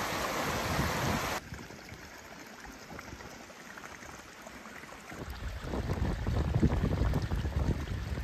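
A swollen, flooding stream rushing in full spate, a loud steady roar that cuts off abruptly about a second in. It gives way to quieter water running in a sheet across a road surface, and a low, uneven rumble joins in after about five seconds.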